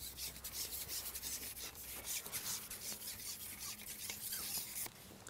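Scratchy rubbing and rustling of a carbon fishing pole being handled while a hooked fish, taken for a perch, is played; the rubbing stops abruptly near the end.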